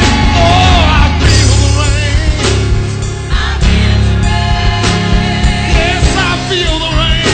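Live gospel music from a church praise team: singers over a band with a steady bass line and a regular drum beat.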